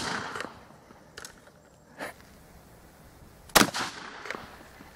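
Shotgun blast echoing away, followed about three and a half seconds later by a second loud shotgun blast that rings off over about a second. The shotgun is firing an improvised load of a single glass marble.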